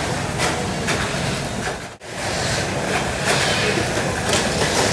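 Tamiya Mini 4WD cars running along the plastic race track, clattering against the lane walls, with scattered knocks. The sound cuts out for a moment about two seconds in.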